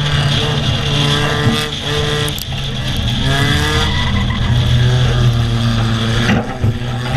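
Race car engines running and revving on a short track, their pitch falling and rising in the middle, with a steady rush of wind and track noise and a few sharp knocks.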